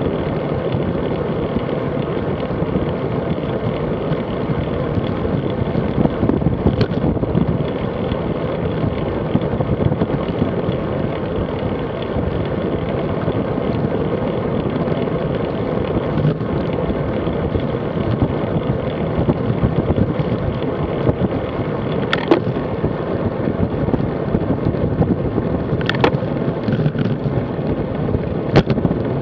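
Wind rushing over the microphone of a bike-mounted action camera, mixed with road-bike tyre and road noise while riding at about 35 km/h. A few sharp clicks or knocks come through in the last third.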